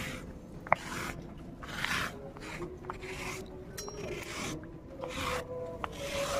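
Wet ground spice paste being scraped off a stone grinding slab (sil), with repeated rasping strokes about once a second as the paste is gathered.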